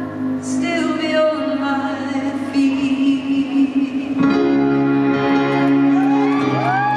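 Female singer with instrumental accompaniment, amplified through a PA, holding long notes over sustained chords. About six seconds in, a few rising-and-falling crowd whoops begin.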